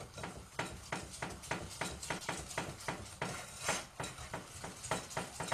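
A utensil beating flour, sugar and milk in a mixing bowl, clicking against the sides at about four strokes a second, mixing it smooth so that no lumps are left.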